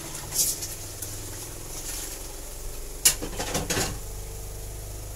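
Chicken curry simmering in a covered pan: a steady low hum with a few sharp crackles and pops, once about half a second in and in a cluster around three seconds in.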